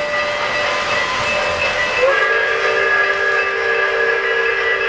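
O-gauge model train running on three-rail track with a steady hiss and rumble. About two seconds in, its sound system blows a whistle of several notes at once. The whistle slides up briefly, then holds for about three seconds.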